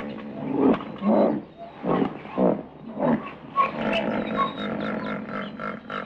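Elephants calling: a run of short, rough, roar-like calls about every half-second, then a longer, steadier call in the second half.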